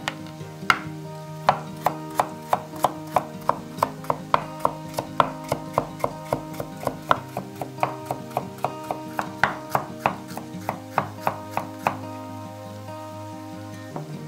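Chef's knife slicing carrots on a wooden cutting board: a steady series of sharp knocks, about three a second, that stop about twelve seconds in.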